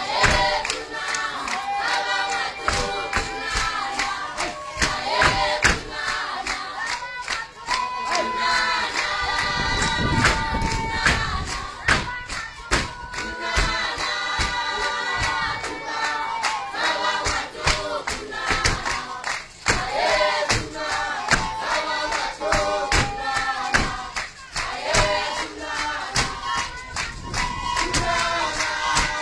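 Traditional dance song: a group of voices singing together over a steady percussion beat.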